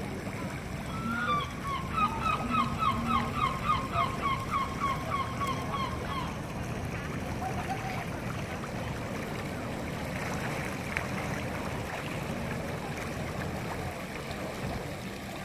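Water pouring and churning steadily into the harbour water beside the quay wall. About a second in, a bird gives a long call: a first note, then a quick run of about fifteen similar notes, roughly three a second, that stop about six seconds in.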